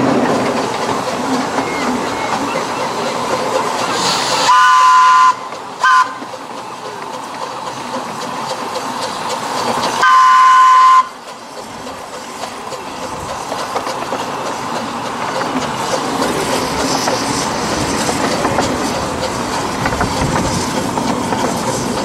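Double-headed Barnes Atlantic miniature steam locomotives running, heard from an open carriage: steady running noise and wheel clatter on the rails. The steam whistle sounds three times: a blast about four and a half seconds in, a quick toot just after, and a longer blast of about a second near ten seconds in.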